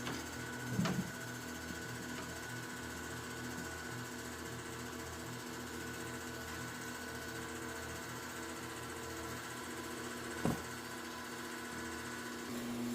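Foundry sand muller running steadily with a mechanical hum as it mixes molding sand with clay and water. Two short knocks, about a second in and near the end.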